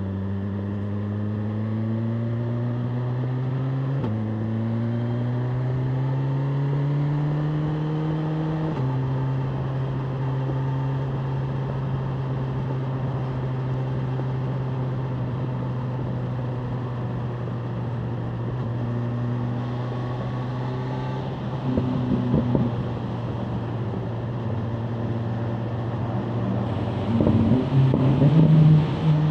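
BMW M1000R Competition's inline-four engine accelerating through two upshifts, its pitch climbing and dropping twice, then running at a steady cruising speed. Near the end it grows louder with rough, uneven bursts as it picks up again.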